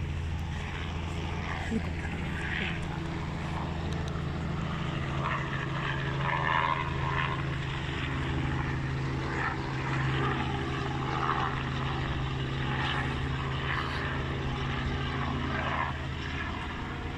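A steady low mechanical drone, like an engine running, that holds unchanged throughout, with faint voices of people talking in the background.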